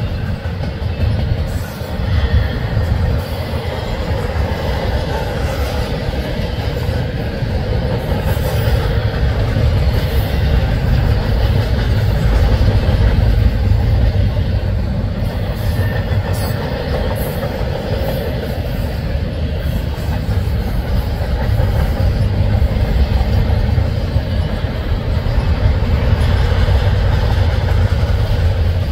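Freight train of autorack and double-stack container cars rolling past: a steady low rumble of steel wheels on the rail, with occasional faint clicks.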